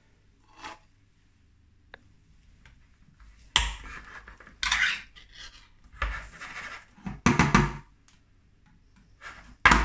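Hand-held can opener working round the lid of a tin with faint clicks, then a run of sharp metallic clatters and scrapes from about a third of the way in as the tin lids are levered up and a ring-pull lid is peeled back.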